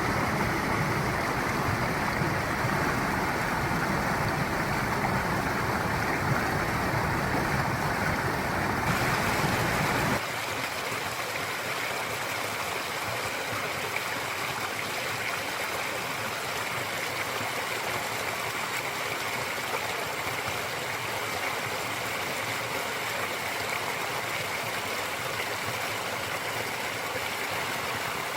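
Mountain stream water rushing and gurgling over rocks. About ten seconds in the sound changes abruptly, from a fuller flow with a deep rumble to a lighter, hissier rush.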